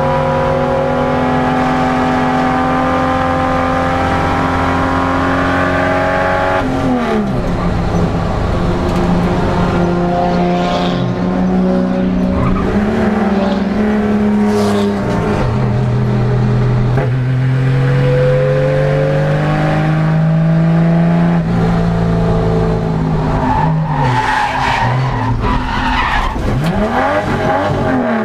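Saloon race car's engine heard from inside the cabin, revving up and down through gear changes. Near the end the tyres skid as the car runs off the track into a sand trap.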